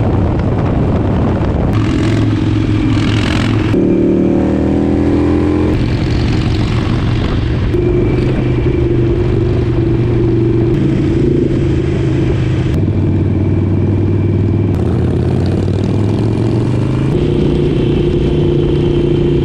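Harley-Davidson V-twin motorcycle engine running on the road under a haze of wind noise. The engine note holds steady, then jumps to a new pitch every couple of seconds. About four seconds in it rises and falls as the bike accelerates.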